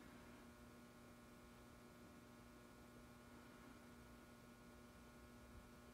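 Near silence: room tone with a faint, steady electrical hum.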